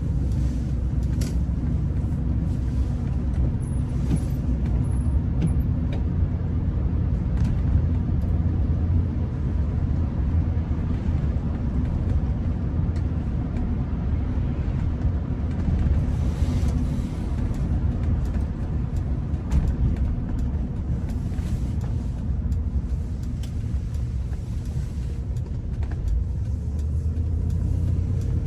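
Steady low rumble of a car driving, heard from inside the cabin, with tyre hiss from a rain-wet road.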